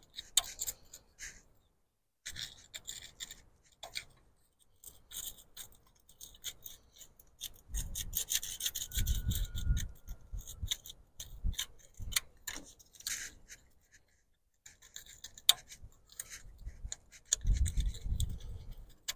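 Fine abrasive being rubbed back and forth between the breaker points in a 1964 Farmall Cub's distributor, dressing the contact faces: short, irregular scratchy strokes. About eight seconds in and again near the end come louder stretches with a low rumble of handling.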